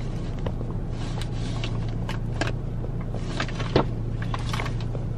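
Steady low hum of a parked car's running engine, heard inside the cabin, with scattered light clicks and rustles of a plastic tray and paper food bags being handled.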